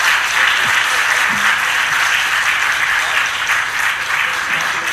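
A large seated audience applauding, many hands clapping steadily together.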